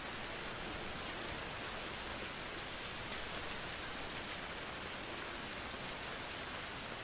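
Steady, heavy rain falling in a dense, even hiss, with no thunderclap.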